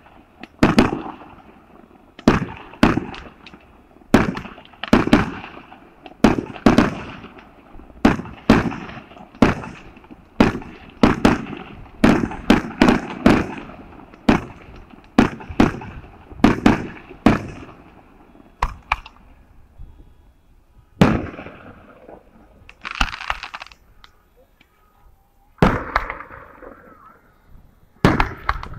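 Aerial fireworks shells bursting in a rapid barrage, about two sharp bangs a second, each followed by a short echo. Over the last ten seconds the barrage thins to a few scattered bangs.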